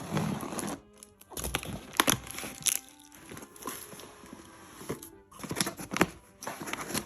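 Packaging crinkling and rustling as a box is unpacked, broken by sharp clicks and knocks, the loudest about two and six seconds in.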